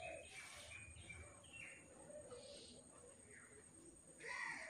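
Faint, scattered bird chirps and calls over quiet background.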